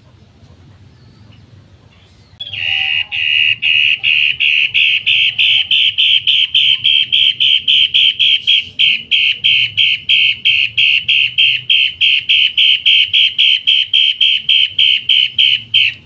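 Caged cendet matahari calling a harsh, loud note over and over at about three to four notes a second, beginning about two and a half seconds in.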